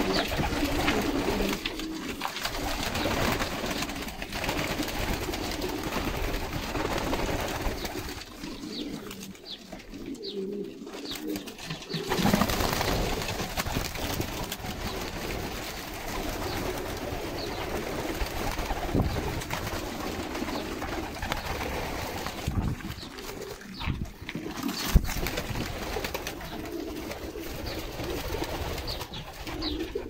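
A loft full of white domestic pigeons cooing continuously, with wings now and then flapping and one sharp knock late on.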